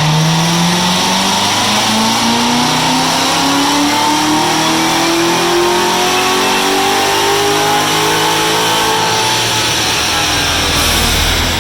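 Supercharged V8 car engine making a wide-open-throttle pull on a chassis dyno, its pitch rising steadily for about ten seconds before the throttle closes near the end. This is a baseline pull made with the engine still cold.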